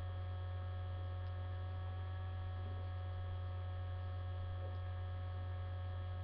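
Steady low electrical mains hum picked up by a webcam's microphone, with a few faint steady higher tones above it.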